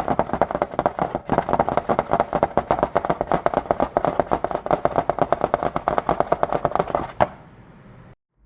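Foley-style imitation of a pot bubbling at the boil: a dense, irregular run of quick popping clicks, many a second, that stops abruptly about seven seconds in on one louder pop.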